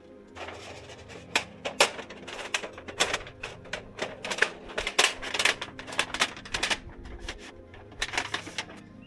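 A quick, irregular run of sharp clicks and light knocks, thinning out about seven seconds in and picking up again near the end.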